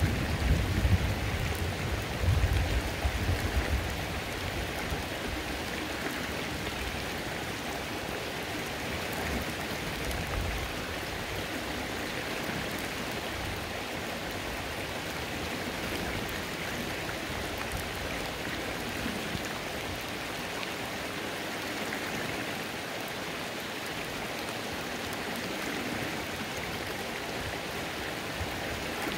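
Rain falling on a creek: a steady hiss of rain and running water, with a low rumble during the first few seconds.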